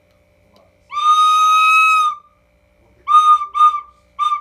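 A loud, piercing high-pitched scream held steady on one note for over a second, then three short shrieks at the same pitch.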